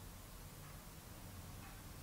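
Quiet room tone: a steady low hum under a faint hiss, with a couple of barely audible soft sounds.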